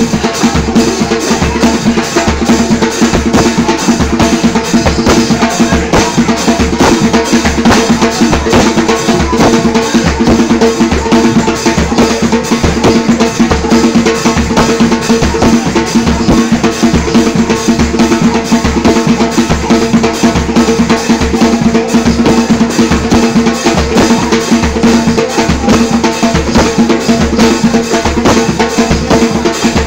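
Brazilian timbal, a tall hand drum, played with bare hands in a fast, continuous rhythm of sharp slaps and open tones. It is loud throughout.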